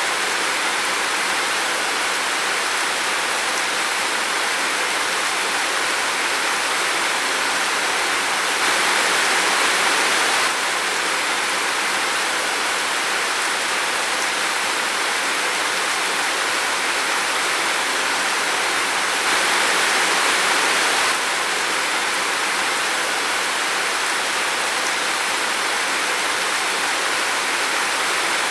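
Steady rain falling in a forest: an even, dense hiss with no separate drops standing out, growing slightly louder twice for a couple of seconds.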